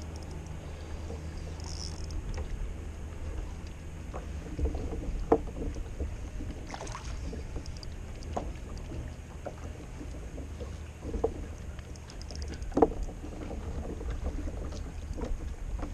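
Fishing kayak on the water: a steady low rumble of wind on a GoPro Hero Session's microphone, with faint water movement and a few light knocks on the hull, the loudest about five and thirteen seconds in.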